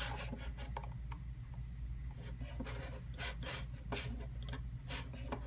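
Short, irregular scratching and rubbing sounds over a steady low hum.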